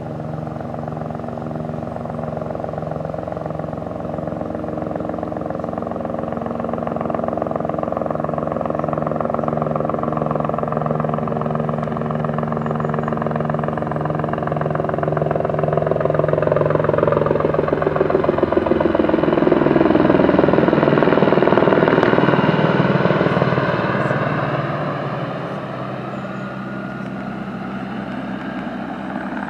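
Aérospatiale AS 350 B Écureuil single-turbine helicopter flying past with a load slung beneath it. The rotor and turbine sound grows louder, peaks about twenty seconds in with a drop in pitch as it passes, then fades.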